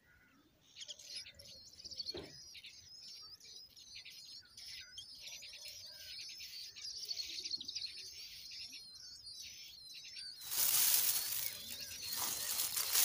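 Nestlings begging: a rapid, continuous stream of thin, high, wavering calls from the hungry chicks gaping in the nest. About ten seconds in, a louder rustling noise cuts in and drowns the calls out.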